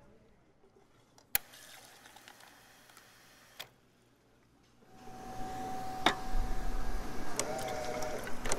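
Quiet at first, with a sharp click and later a fainter one. About five seconds in, a soda fountain machine starts running: a steady mechanical hum with a held whining tone and small clicks over it.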